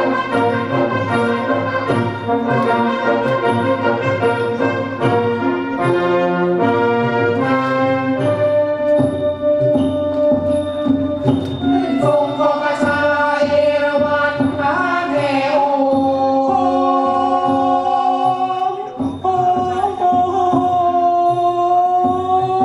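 Orchestral music accompanying a Khon masked dance-drama, with sustained melodic notes over a light regular tick. About halfway through, a singing voice with wavering, sliding pitch comes in over the orchestra.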